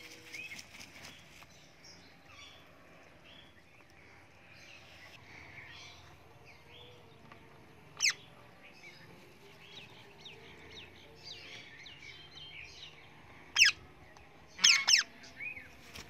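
Parrots calling: soft chirping and twittering throughout, with one sharp, loud shriek about eight seconds in and three more in quick succession near the end.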